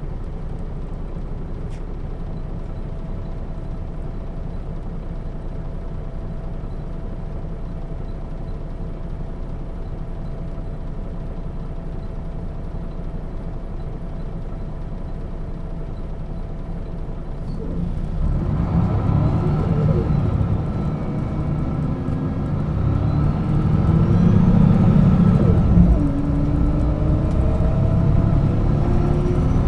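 Setra S 315 UL city bus engine running steadily at idle for a while, then pulling away. The engine gets louder and rises in pitch as the bus accelerates, with a sudden drop about two-thirds of the way through, like a ZF gearbox shift, before climbing again.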